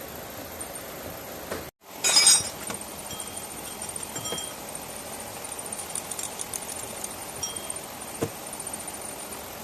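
A sharp metallic clink with a short bright ring about two seconds in, right after a brief cut to silence, then steady hiss with a few small clicks.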